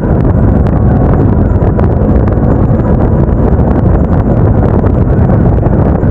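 Wind rushing over the action camera's microphone, mixed with the motorcycle's engine and tyre noise while riding at speed, a loud, steady, low rumble.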